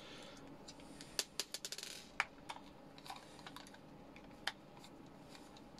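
Faint light clicks and taps of a screwdriver and a small plastic plug-in socket unit being handled while its casing screws are worked on, with a quick run of clicks between one and two seconds in and a few single ticks after.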